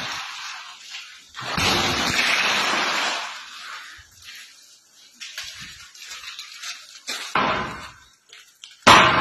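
Tempered glass partition panels shattering. A sudden crash about one and a half seconds in runs on for over a second as a rush of breaking and falling glass fragments, a shorter crash comes near three quarters of the way through, and a hammer blow brings another sudden loud shatter near the end.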